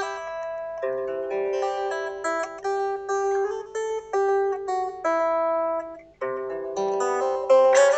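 Solo guitar played freely: single plucked notes and short melodic phrases, a few notes a second, each ringing on, with a brief pause about six seconds in.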